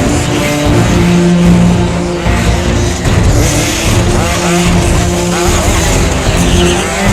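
Two-stroke engines of 1/5-scale off-road RC cars revving up and down, heard over background music.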